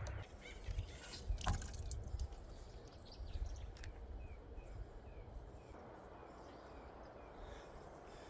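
A faint bird call: a run of short, falling chirps at about three a second. There are a few sharp clicks and drips of water about a second and a half in.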